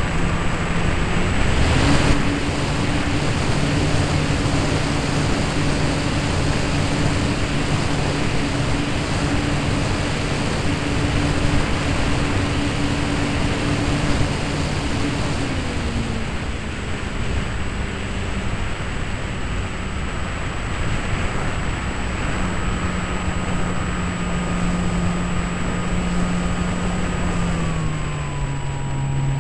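Brushless electric motor and propeller of a Parkzone Mustang RC plane running in flight, heard from a camera mounted on the plane, over a steady rushing noise. The motor's pitch drops a little about halfway through and again near the end.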